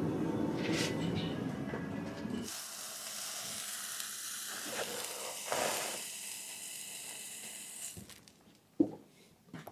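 A forge burner runs steadily for the first couple of seconds. Then a red-hot steel horseshoe hisses and sizzles against a horse's hoof as it is burned in to seat the shoe (hot-fitting). A single sharp knock comes near the end.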